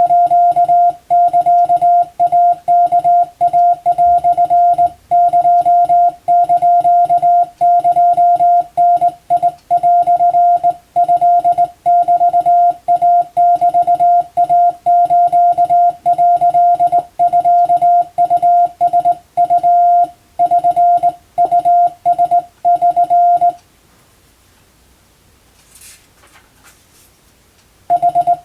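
Morse code (CW) practice tone: a single steady-pitched beep keyed on and off in dots and dashes, sending Japanese wabun telegram text. It stops for about four seconds near the end, with only a couple of faint clicks, then the keying resumes.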